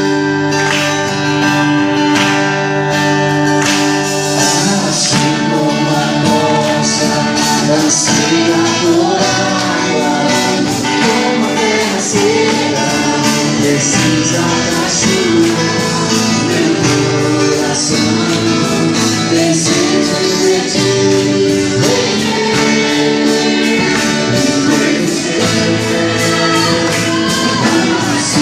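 Live gospel praise music: a vocal group singing with band accompaniment, guitar among the instruments. Sustained chords open, and the voices come in about four seconds in.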